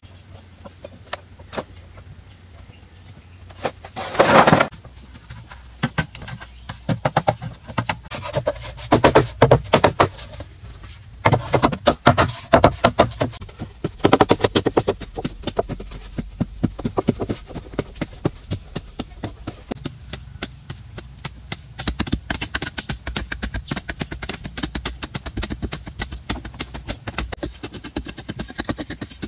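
Manual earth-and-bamboo building work: irregular knocks, scrapes and clatter of hand tools and bamboo against packed soil, with one loud scrape about four seconds in. A steadier series of short taps follows in the last third.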